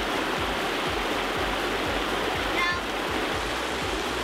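River water running steadily, with a brief voice about two and a half seconds in.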